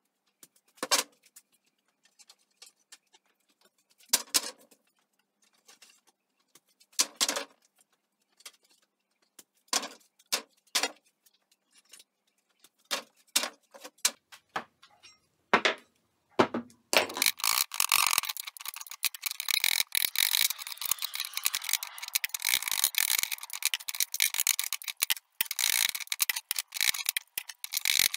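Workshop clatter of loose pallet boards on a steel workbench: scattered sharp wooden knocks a second or few apart, then from about 17 seconds in a dense, continuous rattle of fast clicks.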